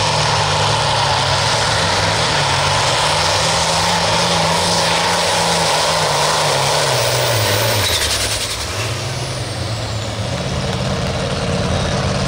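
Turbocharged diesel pulling tractor running hard under load, its engine pitch steady, then dropping about eight seconds in before climbing back up.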